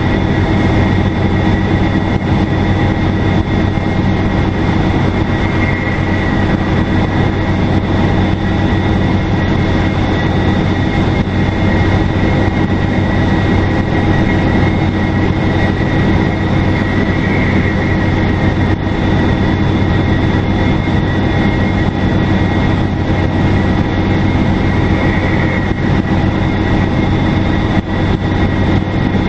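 Detroit Diesel Series 50 four-cylinder turbo diesel of a 2002 NABI 40LFW transit bus running under steady load, a low engine drone with a high, steady turbocharger whistle over it.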